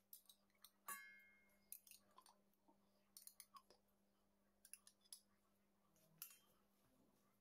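Faint clinks and taps of a metal spoon against a glass jar of tomato paste and a stainless steel saucepan as the paste is scooped into the pan, with one ringing clink about a second in and small clusters of taps after.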